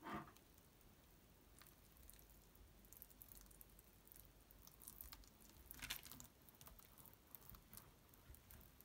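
Faint, soft squelches and light scrapes of a metal spoon stirring and turning partly dried avocado mash on a parchment-lined baking tray, coming now and then and loudest about six seconds in.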